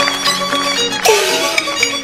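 Peking opera instrumental accompaniment led by the jinghu fiddle, with plucked lutes. About a second in comes one crash of gong and cymbals, the gong's tone sliding down in pitch.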